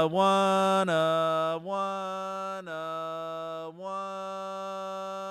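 A man's voice singing or chanting one monotone note, held as a string of sustained tones about a second long each with short breaks between them, getting gradually quieter.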